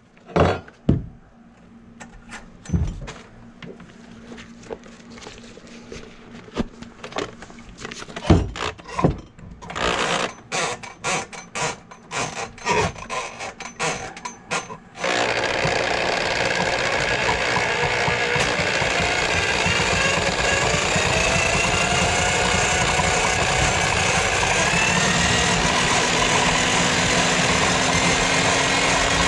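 A handheld electric drum drain snake: a run of knocks and clicks as it is handled and set into the drain, then about halfway through its motor starts abruptly and runs steadily, spinning the cable into a sink drain line clogged with grease.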